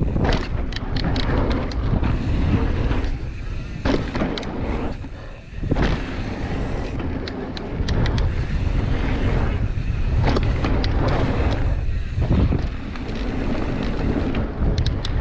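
Wind rushing over the camera microphone and tyres rumbling on a dirt trail as a mountain bike rides downhill, with frequent clicks and rattles from the bike over bumps and a brief dip in the noise a little past the middle.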